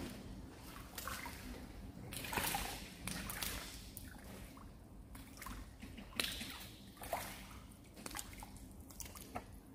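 Water sloshing and splashing in short, irregular bursts as a foul-hooked crucian carp struggles on the line.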